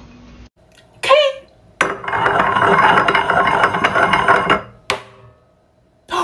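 A glass struck once, sharply, down onto the mouth of a Corona Extra beer bottle, a single clink with a short ring that sets the beer foaming up out of the neck. Before it comes nearly three seconds of loud, dense noise.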